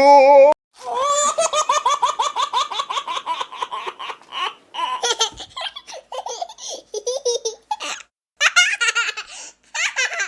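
High-pitched laughter: a long run of quick repeated 'ha-ha' pulses about a second in, followed by shorter laughing bursts.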